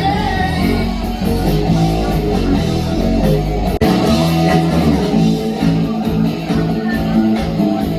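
Amplified live band playing guitar-led rock, with strummed guitar over bass. A brief dropout about halfway through, after which the deep bass thins out.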